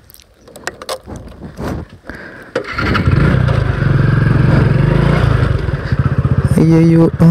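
A motorcycle's single-cylinder engine starts about two and a half seconds in after a few knocks of handling, then runs loud and steady as the bike pulls away. A steady pitched tone, like a horn, sounds over it near the end.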